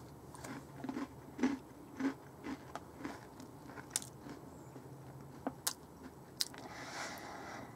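A person bites into a dry MRE ration cracker and chews it with their mouth close to the microphone. There is a crisp bite at the start, then faint, irregular crunches as the cracker is chewed.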